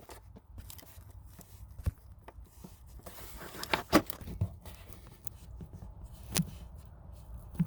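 Handling noise from a camera being repositioned: scattered clicks, knocks and rubbing, the loudest knock about four seconds in, over a steady low hum.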